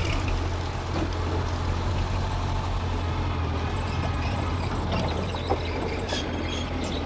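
Mitsubishi bulldozer's diesel engine running steadily with a deep, even drone.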